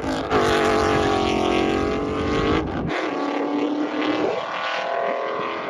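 2018 Ford Mustang GT's V8 with catless headers, an X-pipe and an AWE Touring resonated catback exhaust, heard on a drive-by: a steady exhaust note that sags slightly in pitch. About three seconds in it cuts to a more distant pass, fainter and thinner, falling in pitch near the end as the car draws away.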